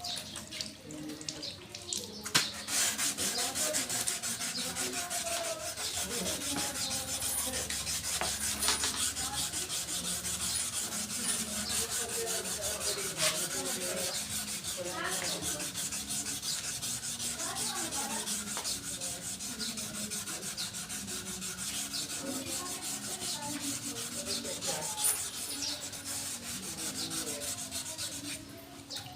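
Steady scrubbing of sandpaper over a vehicle bumper being smoothed during dent repair, starting about two seconds in and stopping near the end.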